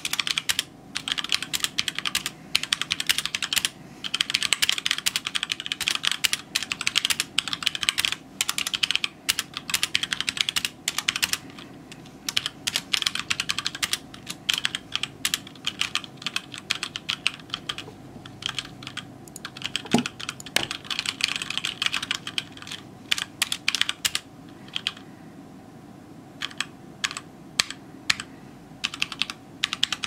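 HyperX Alloy Origins Core mechanical keyboard with HyperX Aqua tactile switches being typed on, full words in quick runs of key clicks with short pauses. There is one heavier thump about two-thirds of the way through. Near the end the keystrokes come more sparsely.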